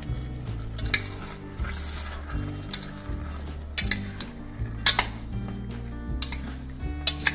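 A steel spoon stirring chopped tomatoes, onions and capsicum in a steel pot, over a faint frying sizzle. The spoon clinks and scrapes against the pot several times, sharpest about five seconds in and again near the end.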